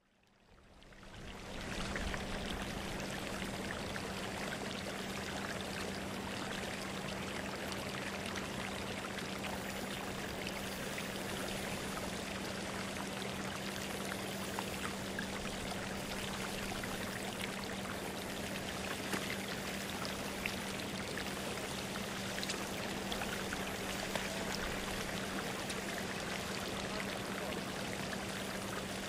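Steady rushing, water-like noise with a constant low hum underneath, fading in over the first two seconds.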